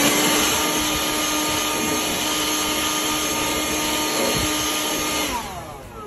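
Electric blower running steadily with a constant whine, blowing foaming cleaner through a refrigerator's condenser coil. It is switched off a little after five seconds in, and its whine falls as the motor spins down.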